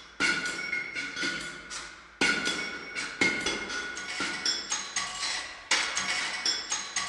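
Hammer blows on metal, a few strikes a second in an uneven rhythm, each leaving the metal ringing.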